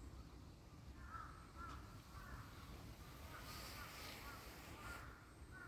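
Faint, repeated short bird chirps over a low background rumble, with a brief soft rustle about three and a half seconds in.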